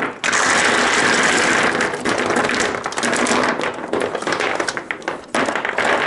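Dozens of 18650 lithium-ion cells clattering out of a plastic organizer box onto a wooden workbench: a dense rattle of hard cylinders knocking on each other, the plastic and the wood. It thins into scattered clicks, then a second short burst comes near the end.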